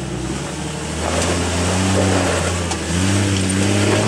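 Jeep Cherokee XJ engine working under load on a steep rock climb, the revs stepping up about a second in and again around three seconds in.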